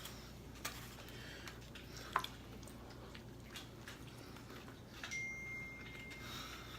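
Faint kitchen handling sounds: a few light clicks and taps as food is handled and sauce is added, with a steady high tone lasting about a second near the end.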